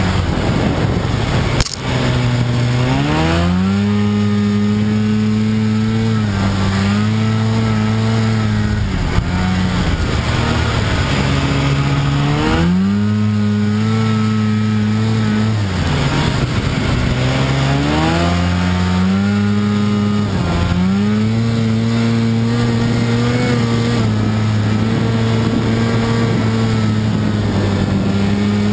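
Snowmobile engine running under throttle, its pitch climbing as it speeds up and then holding steady, dropping back and climbing again four times. A brief thump near the start.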